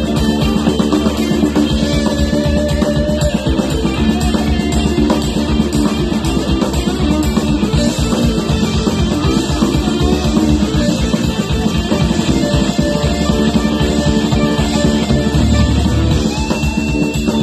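A live rock band playing an instrumental passage on electric guitar, bass guitar and drums, loud and unbroken, with no singing.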